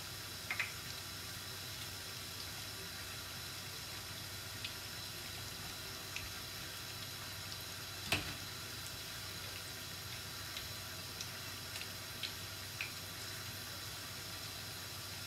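Zucchini fritters sizzling steadily in hot frying oil, with a few light clicks of a metal spoon against the pan, one sharper than the rest about eight seconds in.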